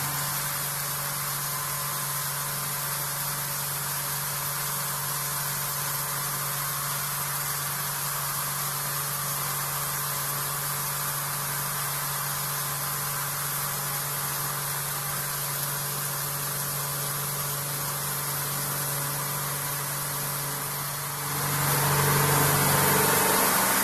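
CNC vertical machining centre running a face-milling pass on an aluminium part: a steady machine hum with a low drone and an even hiss. It grows louder about 21 seconds in.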